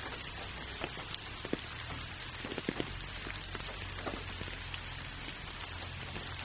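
Steady rain falling, an even hiss with scattered drops ticking sharply on a surface.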